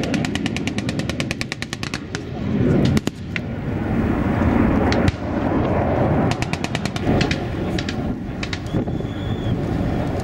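Bursts of rapid automatic gunfire: a long fast burst at the start, a few single shots about two to three seconds in, and more bursts from about six seconds on. Under the shots runs a steady low rumble.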